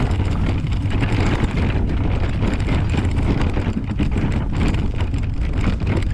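Wheelchair rolling along a rough, uneven dirt path: a steady rumble broken by many small knocks and jolts, with wind on the microphone.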